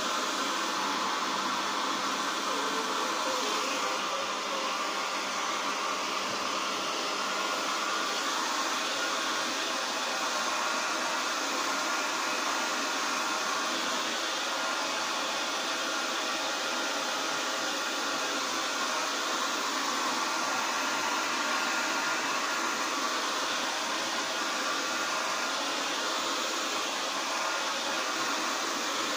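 Small handheld hair dryer running steadily, a constant rush of air with a steady motor hum, blowing over a wet dog's coat.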